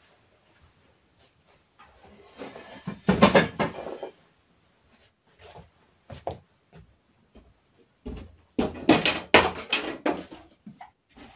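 Two bursts of clattering knocks and clicks, one about three seconds in and a longer one about nine seconds in, with a few lighter clicks between.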